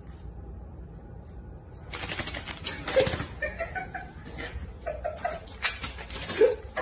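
A cat with paper stuck to its paws walking on a tile floor: a rapid run of papery scuffs and taps that starts about two seconds in, over a low steady hum.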